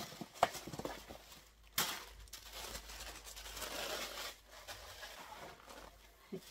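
Packaging being handled: a soft rustling with a few light clicks, the sharpest about half a second and just under two seconds in.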